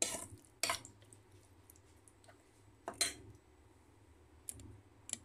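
A metal spoon clinking against a stainless steel bowl as marinated chicken is mixed: about five sharp clicks, irregularly spaced, over a faint low hum.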